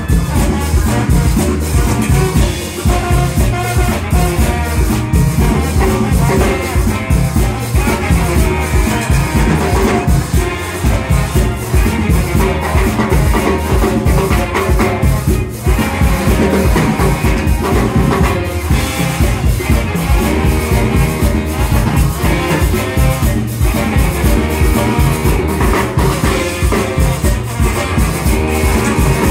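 Live band playing with a steady beat: trombone and saxophones over drum kit, with a metal shaker keeping time.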